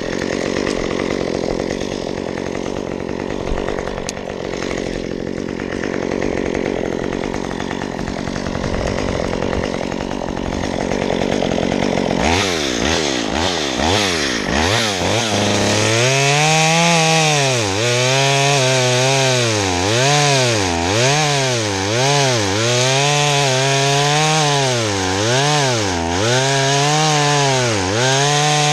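Stihl MS193T top-handle two-stroke chainsaw running. For the first twelve seconds or so it is a dense rasp without a clear note. After that the engine note comes through strongly and rises and falls in pitch about once a second.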